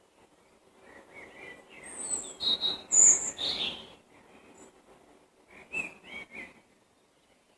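Wild songbirds singing: a loud, varied phrase of high chirps and quick gliding notes about a second in, then a shorter phrase a couple of seconds later.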